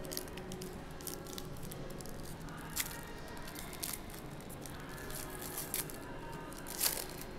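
Foil wrapper of a trading-card pack crinkling and tearing as it is worked open by hand, with sharper crackles about three seconds in and near the end.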